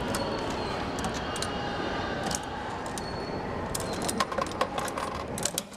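Quick metallic clicks and clinks of quarters going into a coin-operated toy vending machine and its mechanism working, bunched about four seconds in, over a steady background hum.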